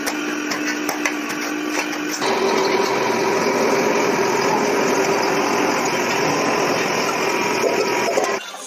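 About two seconds of steady machine hum with light metallic clicks as aluminium discs are handled, then a louder steady hum with a constant whine: a hydraulic press running as it deep-draws an aluminium disc into a bucket shell. It cuts off abruptly just before the end.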